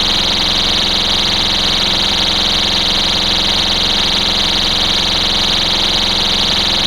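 STI Stopper pull-station cover's built-in piezo alarm horn sounding continuously: a loud, steady, high-pitched tone. It is the local warning the cover gives when it is lifted.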